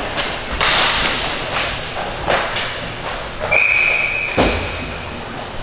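Inline hockey play at the net: sticks clacking and sharp knocks and thuds of sticks, puck and skates, with a heavy thud about four and a half seconds in. A referee's whistle blows one long steady blast starting about three and a half seconds in, stopping play.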